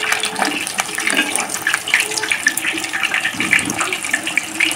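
Egg-batter-coated chicken satay skewers deep-frying in hot oil in a kadai: a steady, dense sizzle full of small crackling pops, during the first half-fry.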